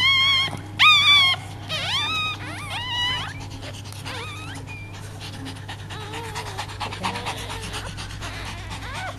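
Silky Terrier whining: about five loud, high-pitched whines, each rising in pitch, in the first three seconds. These are followed by quieter panting and a few softer, lower whimpers.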